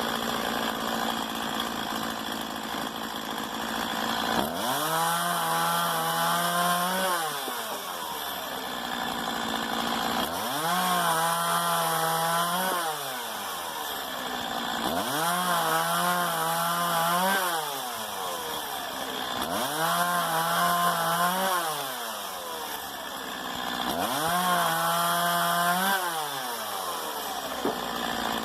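Stihl MS 170 two-stroke chainsaw idling, then revved up five times, each held at high speed for about two seconds before dropping back to idle.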